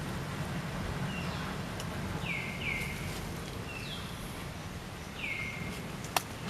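About six short, high-pitched animal calls, each falling in pitch, over a steady low rumble, with one sharp click near the end.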